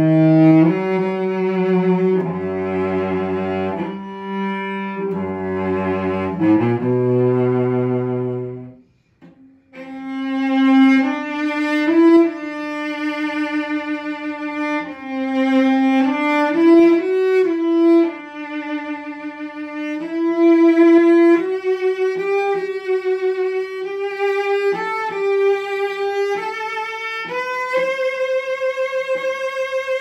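Solo bowed cello, an 1884 Louis Noebe 'System Noebe' instrument with a modified bass bar and a small second bass bar. It opens with about nine seconds of low, sustained notes sounded together, pauses briefly, then plays a singing melody higher up with vibrato that climbs near the end.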